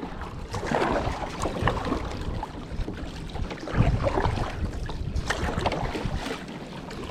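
Rain and water noise around a kayak, with wind buffeting the camera microphone and scattered irregular knocks and splashes.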